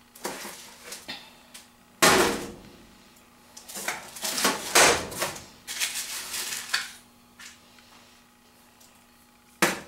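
Slotted spatula scraping and clattering against a foil-lined baking pan while lifting out breaded fish fillets. A sharp knock about two seconds in is the loudest sound, followed by a run of scrapes and a short click near the end.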